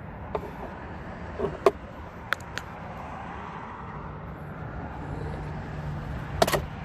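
A few scattered sharp clicks and knocks from handling the pickup's door trim parts, the loudest about a second and a half in, over steady outdoor background noise with a low hum.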